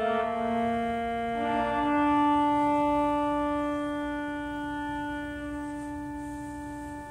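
Church pipe organ holding sustained chords. The chord changes about a second and a half in, then one long chord is held and slowly fades.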